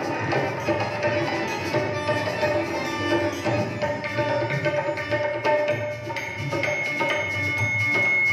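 Live Sufi devotional music: a dholak and tabla keep a rhythm under held melodic notes. A long high note comes in about six seconds in.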